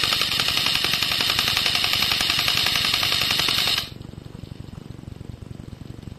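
Airsoft electric gun firing a long full-auto burst, a rapid rattle of shots that stops sharply a little under four seconds in.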